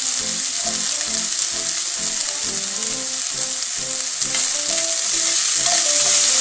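Chopped onion, garlic and ginger sizzling steadily in hot oil in a pan while being stirred with a spatula.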